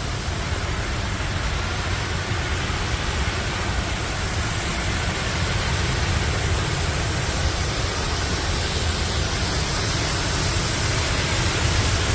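Steady rushing of a nearby waterfall, an even roar of falling water with no breaks.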